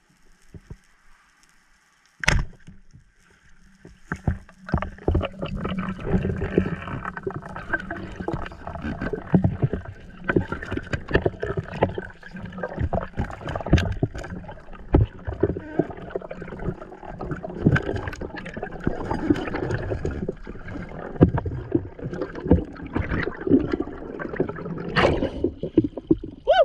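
Heard underwater: a single sharp crack about two seconds in, typical of a speargun firing, then a busy run of knocks, clicks and water sloshing as the diver handles the speared red snapper and swims up to the surface.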